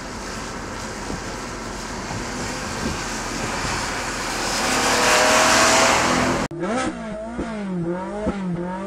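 Lancia Thema 8.32's Ferrari V8 driving at speed, its note and road noise growing louder and rising in pitch up to about six seconds in. After a sudden cut, the engine is blipped in quick revs, its pitch repeatedly jumping up and falling back.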